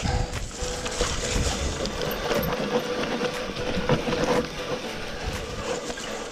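Mountain e-bike rattling over a rough trail: tyre noise with a rapid run of knocks and clicks from the bike, and a steady faint tone underneath.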